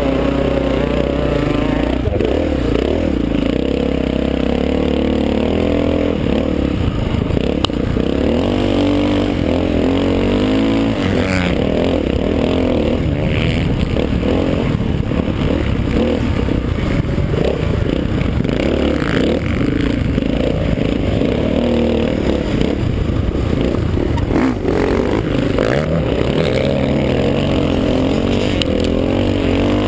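Honda XR500's four-stroke single-cylinder engine, heard from the rider's helmet, pulling and revving up and down repeatedly as the bike is ridden hard around a dirt motocross track.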